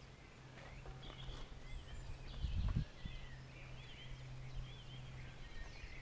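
Faint birdsong, several small birds chirping, over a steady low hum, with a brief low rumble on the microphone about two and a half seconds in.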